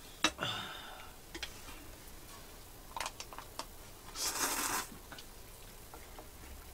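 A man slurping instant noodles from a bowl with chopsticks, the longest and loudest slurp coming about four seconds in. A few light clicks of chopsticks against the bowl come before it.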